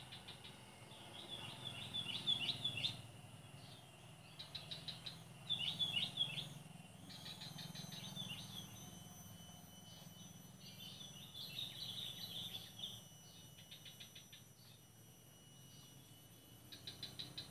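Bird song: short bursts of high chirping notes repeated about four times, with quick rattling trills in between, over a low steady hum.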